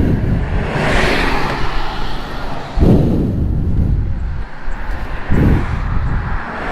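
Kawasaki ZX-10R motorcycle on the move, its engine running under wind rushing over the microphone, with three heavy low surges of rumble.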